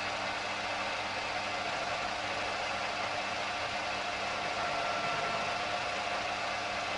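Mini lathe running steadily, its motor and gearing humming as the turning tool cuts an OMEGA suppressor baffle in the chuck. A faint higher whine comes in about halfway through.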